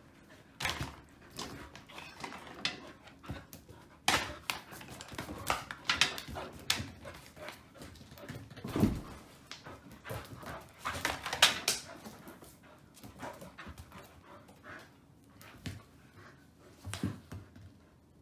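Old English Sheepdog puppy playing rough with a ball on a wooden floor, really noisy: irregular clusters of scrabbling paws, knocks and thuds, mixed with the puppy's own breathing and vocal noises.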